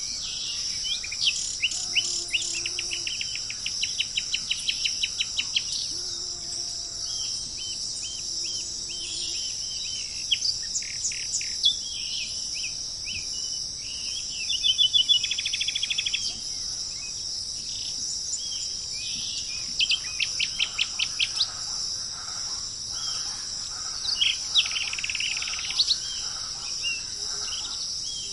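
Small songbirds chirping and singing rapid trills, over a steady high-pitched drone of insects.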